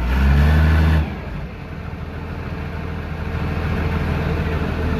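18-inch rubber hot mill running: a loud, steady low hum that drops off sharply about a second in, giving way to a rougher mechanical rumble that slowly builds.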